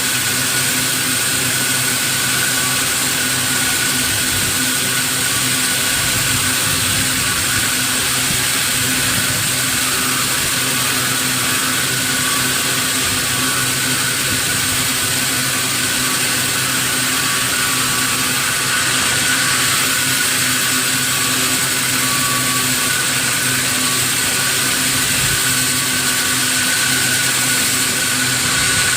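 Sawmill machinery running steadily: a loud, even mechanical noise with a constant whine.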